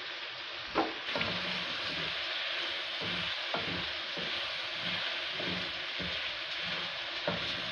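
Chicken pieces, chopped tomato and onion sizzling in oil in a kadhai as they are fried with spices (bhuna), stirred with a wooden spatula in a steady rhythm of soft scraping strokes. A few sharper knocks of the spatula against the pan come through.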